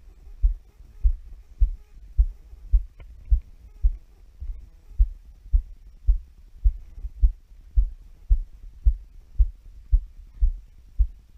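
Walking footsteps, heard as dull low thuds in a steady rhythm of about two a second, each step jolting the body-worn camera.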